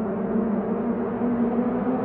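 Honda Civic Type R EK9's naturally aspirated B16B 1.6-litre VTEC four-cylinder engine running under load with a steady drone, its pitch creeping slowly upward.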